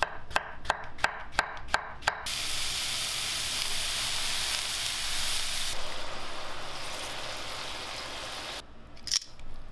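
A knife chopping on a cutting board with even strokes about three a second, then food sizzling in a hot frying pan from about two seconds in, stopping abruptly near the end, followed by a couple of light knocks.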